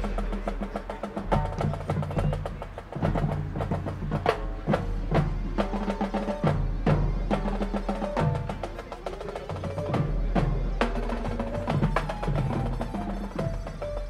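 High school marching band playing its field show, with many sharp drum and percussion hits over sustained pitched notes.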